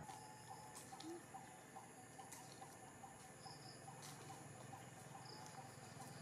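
Faint insect chirping in a quick, steady rhythm, with a few soft clicks.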